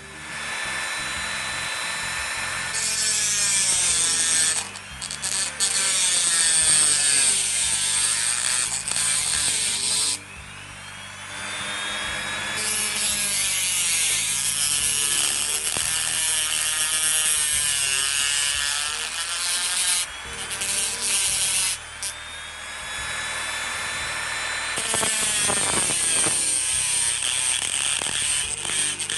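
Small handheld power tool, a rotary cutting tool, running in long stretches while cutting a small plate. Its whine wavers in pitch as it bears on the work, and it stops and starts again several times.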